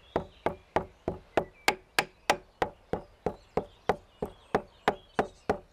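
A white pestle pounding herbs in a dark stone mortar: a steady run of sharp knocks, about three a second.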